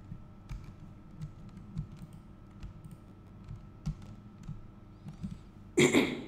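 Computer keyboard keys and mouse clicks tapping at irregular intervals, with one brief, much louder burst of noise near the end.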